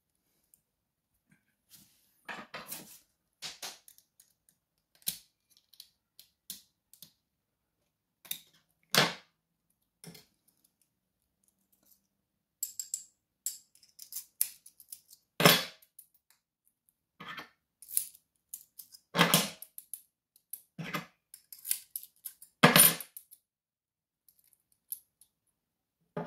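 Small metal lock parts and tools clicking, tapping and clattering against each other and the wooden tabletop, at irregular intervals with a few louder knocks, as an Evva 3KS cylinder is taken apart: the retaining clip coming off and the housing being worked off the core.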